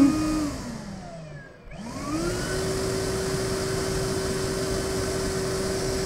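EGO Power+ 56V 9-gallon cordless wet/dry vacuum's brushless motor winding down almost to a stop as its speed setting is changed, then spinning back up about two seconds in. It settles into a steady whine at its normal setting, a little higher in pitch than at the start.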